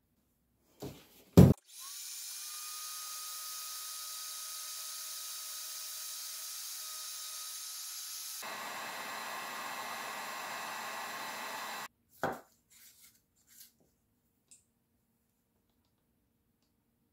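Electric heat gun clicked on and running steadily for about ten seconds with a faint whine, blowing hot air to shrink heat-shrink tubing over a wire splice. About eight seconds in its sound grows fuller and louder. It is then switched off with a click, and a few small ticks of wire handling follow.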